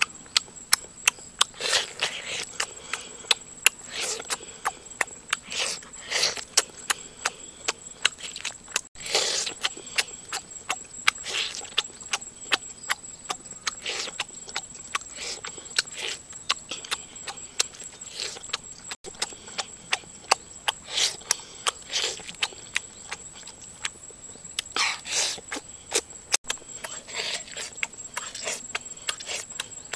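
Close-miked chewing and lip-smacking of a person eating cooked pork ribs by hand: many sharp wet clicks and smacks, several a second, with a steady high whine underneath.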